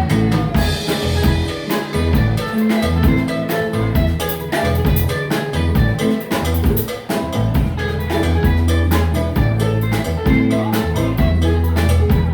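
Live band playing an instrumental passage with no singing: acoustic guitar, bass guitar and drum kit keeping a steady, busy rhythm.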